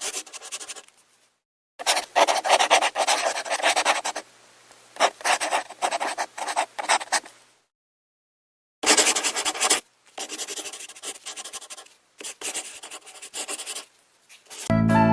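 Quick, scratchy strokes of a drawing tool on paper, in several runs broken by short silences, as the drawing is drawn and coloured in. Piano music comes in near the end.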